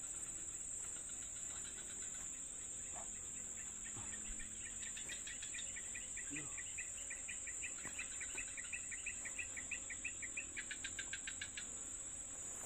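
Insect chorus: a steady high-pitched cricket drone, joined by long runs of rapid, evenly spaced chirps, one starting about five seconds in and another near the end.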